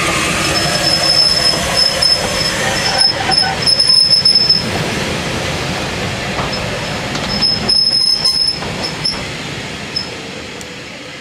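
Steam-hauled passenger train rolling slowly past, the locomotive and coach wheels running on the rails with a high metallic squeal that comes and goes, heaviest in the first half and again just past the middle, with a few clanks. The noise slowly fades as the train draws away.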